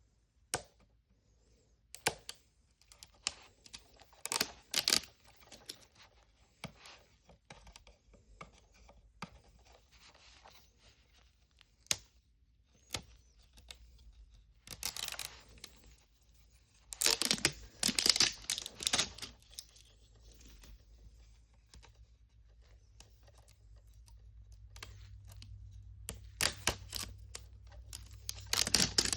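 Plastic toy packaging being torn open and unwrapped by hand: scattered crinkles and clicks, with several loud bursts of ripping in the middle and again near the end.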